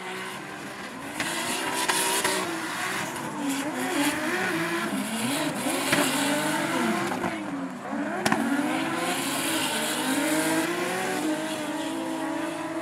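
Two drift cars in a tandem run, their engines revving hard with the pitch swinging up and down as the throttle is worked, and tyres squealing under a continuous hiss of wheelspin. The sound gets louder about a second in, and there is one sharp pop about two-thirds through.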